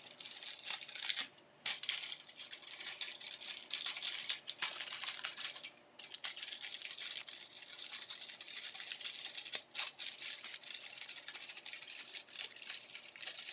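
Aluminium foil crinkling and rustling as hands fold its edges up and in to form a small flat-bottomed boat, with two brief pauses, about one and a half and six seconds in.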